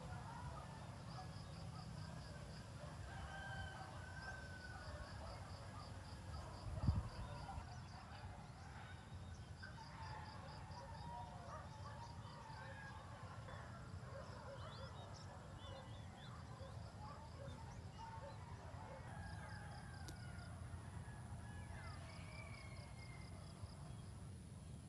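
Faint morning outdoor ambience of birds calling and chirping, with a fast pulsed high chirping coming and going and a steady low rumble underneath. A single sharp knock about seven seconds in.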